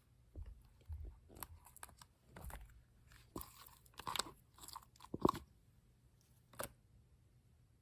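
Shaving-foam slime being squeezed and pressed, giving a string of irregular, soft crackling and sticky popping sounds, loudest a little past the middle.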